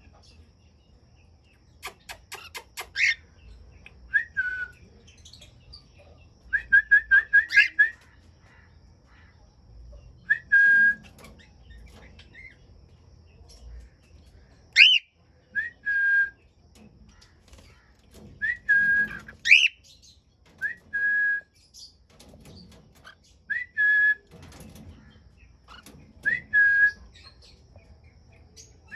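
Cockatiels whistling: repeated short whistled notes, with a quick run of them about seven seconds in and a few sharp rising calls scattered among them.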